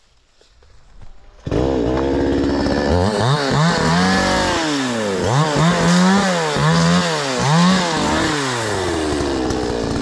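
Hyundai Turbo 650 two-stroke chainsaw engine, coming in suddenly about a second and a half in after faint rustling. It is revved up and down six or seven times in quick blips, then settles to a steady run near the end.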